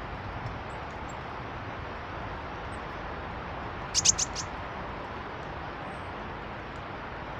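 A small bird gives a quick run of four sharp, high calls about four seconds in, over a steady background rush of noise.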